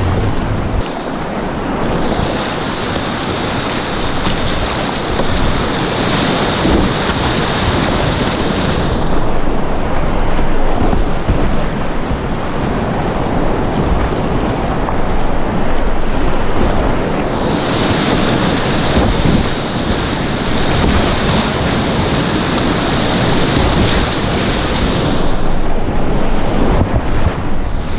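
Whitewater rapids rushing, loud and steady, heard from a kayak in the middle of the rapid.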